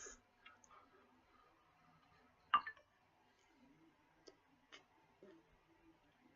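A few faint clicks in a quiet room, with one sharper click about two and a half seconds in.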